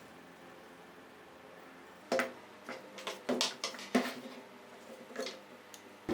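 A couple of seconds of low room noise, then a string of about eight to ten sharp clicks and light knocks over some four seconds, like small tools or metal parts being picked up and set down.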